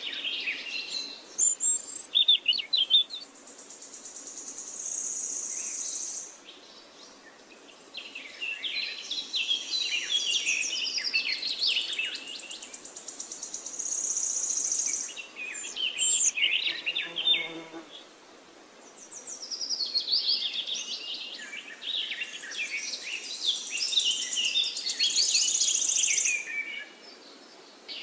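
Birds chirping and singing in quick, trilling phrases, with a high, thin buzz like insects, in several bursts separated by short lulls.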